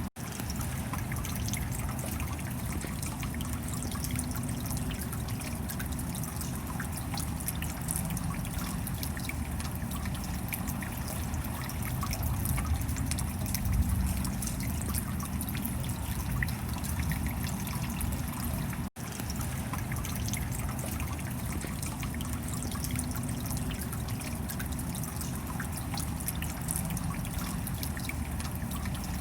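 Steady rain: many small drop clicks over a dense, even hiss of falling and running water. The sound cuts out for a split second about nineteen seconds in.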